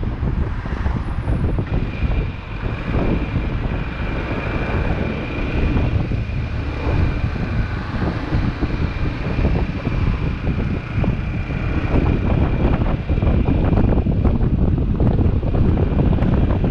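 Wind rushing over the microphone of a moving motorcycle, with the bike's engine running underneath. A thin, steady high whine sits over it for much of the time.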